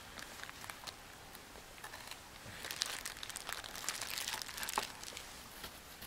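Plastic bag crinkling as a knife scoops and scrapes butter out of it, an irregular crackle with small clicks that gets busier past the middle.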